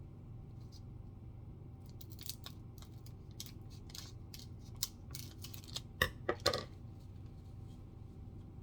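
Foil wrapper of a trading card pack crinkling and tearing as it is opened: a run of crackles with a few louder quick rips past the middle.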